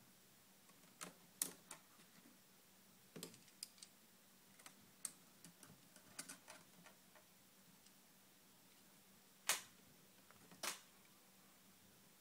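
Faint, scattered small clicks and taps of tiny screws and a mini screwdriver being handled against a plastic laptop screen frame, with two louder clicks near the end.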